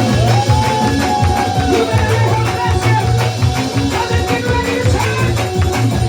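Loud up-tempo church praise music: drums and a pulsing bass line under sustained keyboard notes, one sliding up near the start and gliding down about two seconds in.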